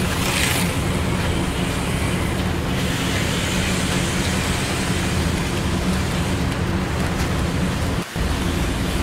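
HO-scale slot cars and a model train running on the layout: a steady whir of small electric motors and wheels on plastic track over a low hum. It cuts out briefly about eight seconds in.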